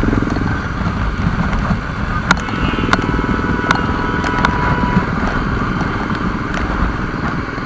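Triumph Tiger XRx's 800 cc inline-three engine running while riding, with heavy wind and road noise. A thin steady high tone sounds for a couple of seconds in the middle, and there are several sharp ticks.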